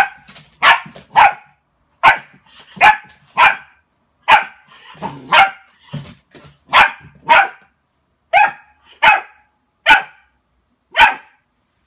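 Border collie barking at its own reflection in a mirror: sharp single barks, about fourteen of them, often in quick pairs, roughly one a second.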